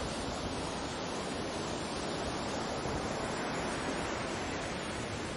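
Baltic Sea surf: a steady, even rush of small waves washing in, with no single wave standing out.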